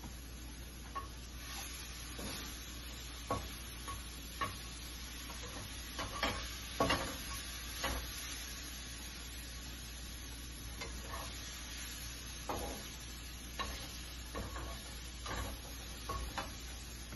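Food being stirred in a pan: irregular scrapes and taps of a cooking utensil over a steady low hum.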